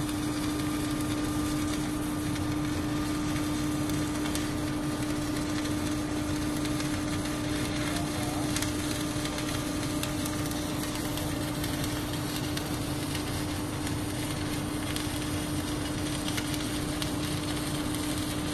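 Submerged arc welding machine running a weld pass on steel: a steady hum with a constant crackling hiss.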